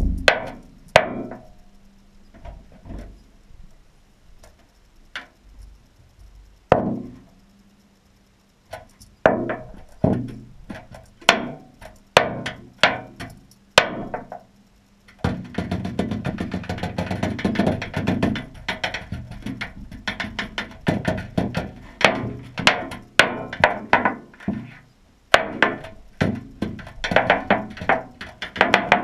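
Rattle jig being hopped and dragged along a hard bottom, its rattles clicking and the jig head knocking in sharp, irregular ticks. The ticks are sparse at first and become a dense, nearly continuous rattle about halfway through.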